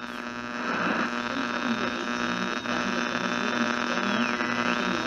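Electronic buzzing hum, a steady drone with a thin high whine above it that dips in pitch about four seconds in and comes back up near the end: a mock 'please stand by' signal-interference sound effect.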